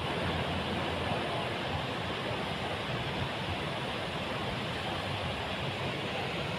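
Steady rush of surf washing over a shallow sandy beach.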